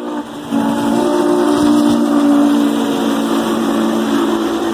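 Chime whistle of Norfolk & Western class J 4-8-4 steam locomotive 611 blowing one long, steady blast: several tones sounding together as a chord, over the rush of the passing train.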